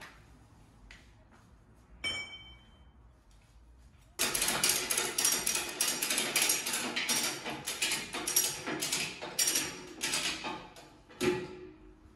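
A metal clank that rings briefly, then about six seconds of fast, dense clicking and rattling from a ratchet tie-down strap being worked to secure the car to the chassis dynamometer, ending with a sharp knock.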